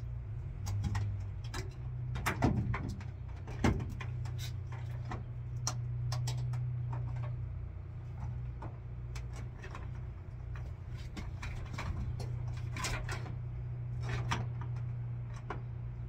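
Scattered small clicks and knocks from hand work at the ceiling of a van's cargo area, over a steady low hum.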